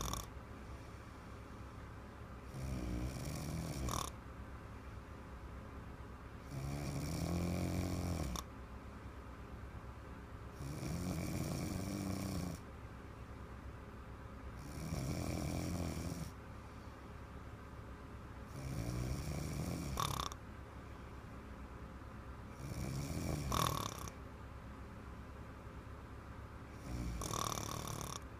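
A little girl snoring: a long snore about every four seconds, seven in all, each lasting a second or two.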